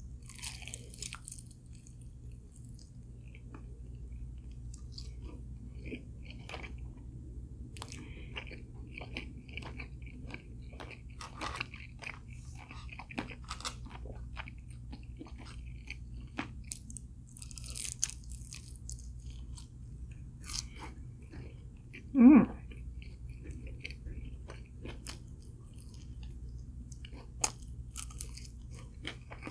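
Close-up chewing and crunching of crispy fried chicken, a run of irregular crisp crackles over a steady low hum. One brief, much louder thump comes about three-quarters of the way through.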